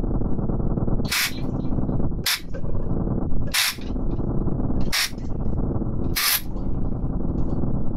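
Live electronic music: a dense, steady low drone with sustained tones, cut by five sharp, hissy noise bursts about one every second and a bit, each making the drone drop out for an instant. The bursts are electronic sounds triggered by grains falling into glass vessels.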